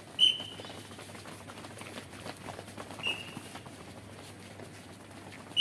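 Feet of a group of runners stepping and shuffling on a paved path during a warm-up drill, a steady patter of small scuffs. Three short, high-pitched chirps cut through it: one about a quarter-second in, a weaker one about three seconds in, and a loud one at the very end.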